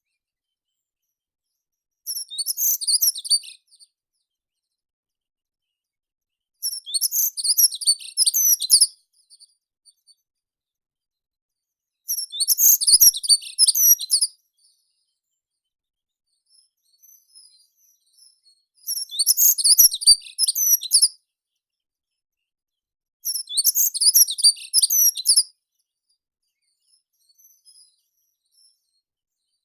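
Meadow songbird singing short phrases of rapid, very high notes, five times, each about two seconds long with pauses of a few seconds between.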